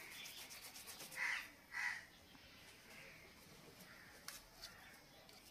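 A crow cawing twice in quick succession, about a second in, over faint rubbing as flour dough is pressed around the rim of a cooking pot.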